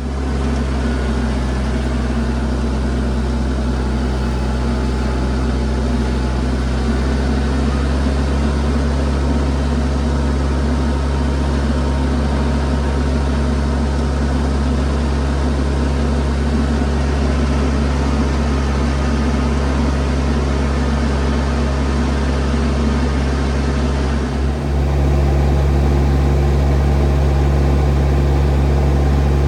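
An engine running steadily at a constant speed, with a deep, even hum; about 24 seconds in it dips briefly and then runs on a little louder.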